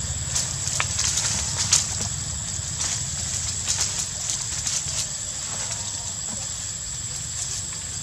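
Dry leaves and twigs crackling and rustling in scattered short clicks as macaques move through leaf litter and shrubby stems, over a steady low rumble and a steady high-pitched whine.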